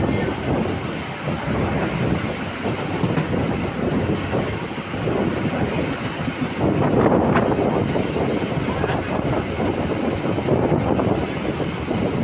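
Moving train running along the track, a steady rumble with the clatter of wheels over the rails.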